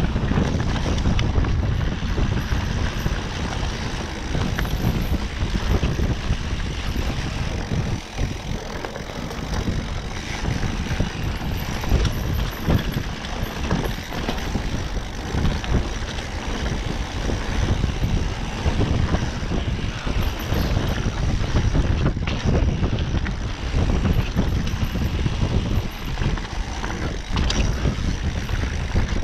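Mountain bike ridden fast along a rough dirt trail: tyres rumbling and the bike rattling and knocking over bumps, with wind buffeting the camera's microphone.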